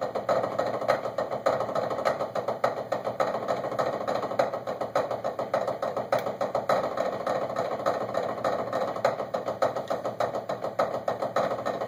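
Two drummers playing rudimental warm-up exercises together with sticks on drum practice pads: a fast, continuous stream of even stick strokes.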